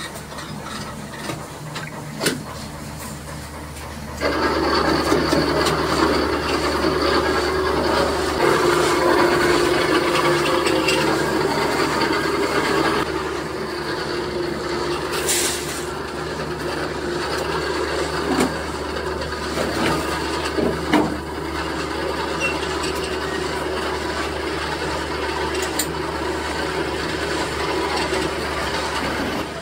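Machinery running with a steady hum and a scraping, grinding rumble. It grows louder about four seconds in, with a few sharp metal knocks and a brief hiss later on.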